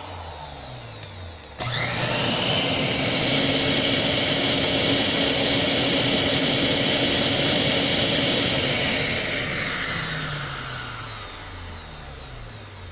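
Vec blender motor winding down, switched on again about a second and a half in with a quick rising whine, running steadily at full speed, then switched off and coasting down over the last few seconds. The blender runs again after its wires were joined directly.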